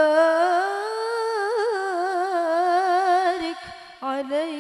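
A woman's solo voice chanting an Arabic devotional melody in qori style into a microphone: one long ornamented note with a fast vibrato, rising and then settling, that breaks off about three and a half seconds in before a new phrase begins near the end.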